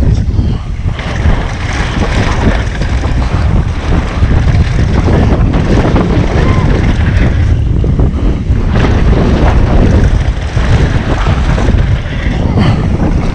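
Wind buffeting the action camera's microphone with a dense low rumble, mixed with mountain bike tyres running over a dirt trail at speed and scattered short knocks and rattles from the bike.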